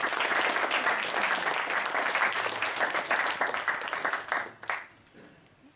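Audience applauding, a dense patter of many people clapping that thins out and stops with a few last claps about five seconds in.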